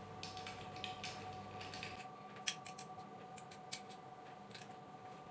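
Scattered faint metallic clicks and ticks of a small hand tool tightening screws on a mini metal lathe's parts, with a sharper click about two and a half seconds in and another near four seconds. A faint steady hum runs underneath.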